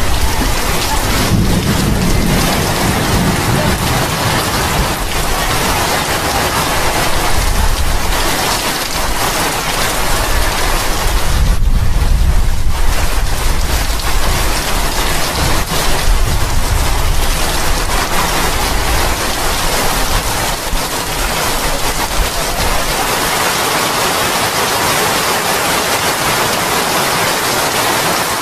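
Heavy tropical rain pouring steadily onto wooden decks, thatch and sea, with a low rumbling that swells and fades at times.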